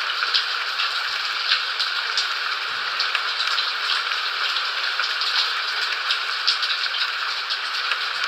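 Steady rain: an even hiss of falling water with many small drop ticks scattered through it.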